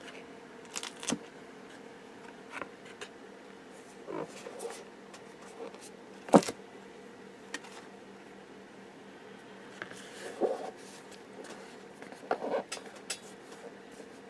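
Plastic embossing folder being pressed into wet molding paste on a board and peeled off again: scattered soft plastic crinkles and taps, with one sharper click about six seconds in.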